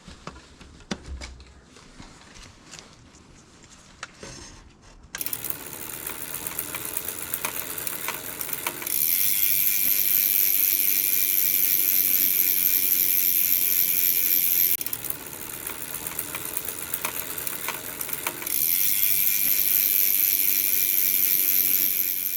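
Scattered light clicks and knocks of tools on bicycle parts, then from about five seconds in a fast, steady ratcheting click that runs for several seconds at a time. It grows louder twice, typical of a bicycle's freewheel ratchet buzzing as the drivetrain is spun.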